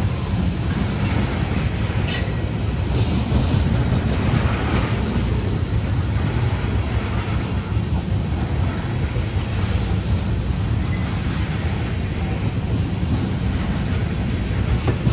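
Freight train tank cars rolling past: a steady rumble of steel wheels on rail, with a sharp click about two seconds in and another near the end.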